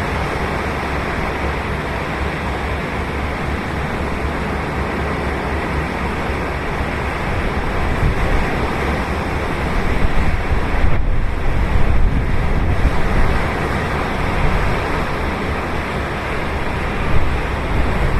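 Ocean surf: waves breaking and washing up the beach in a steady rush, swelling louder for a few seconds in the middle.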